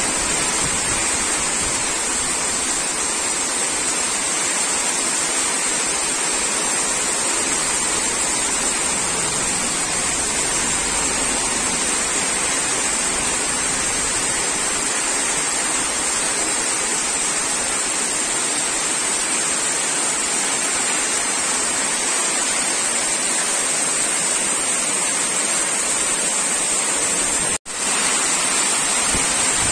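Heavy rain pouring onto waterlogged grass and bare earth: a steady, dense hiss of drops on standing water, with one brief dropout near the end.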